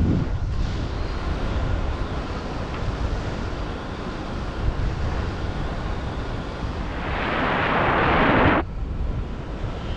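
Wind rushing over the microphone in flight under a paraglider: a steady low rumble, with a louder hiss that builds from about seven seconds in and cuts off suddenly.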